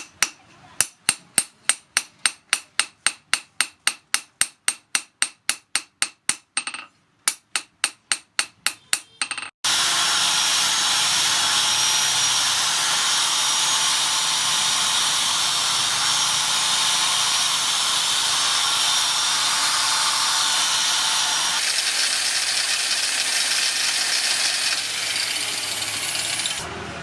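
Hand hammer striking steel at an even pace of about three to four blows a second, with a short pause about seven seconds in. At about ten seconds the hammering stops and a power tool starts up and runs steadily.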